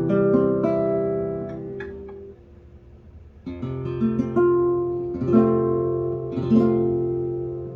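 1969 Alfonso Checa Spanish guitar being played: strummed chords left to ring and die away, a short pause of about a second, then more strummed chords.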